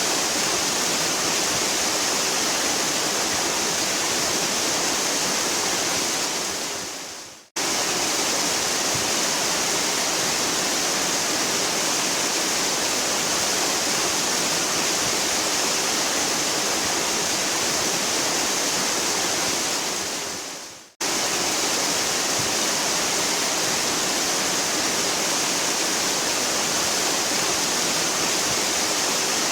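Waterfall rushing in a steady, loud, hissy roar of falling water. It twice fades away to silence, about seven and twenty-one seconds in, and cuts straight back in at full strength.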